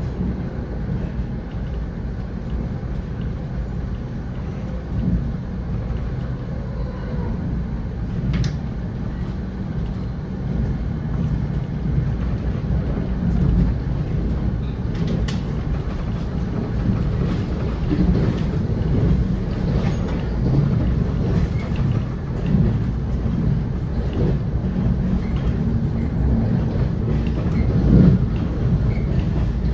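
Steady low rumble inside a moving NJ Transit Comet V commuter rail coach, the wheels running on the rails, with a few sharp clicks along the way.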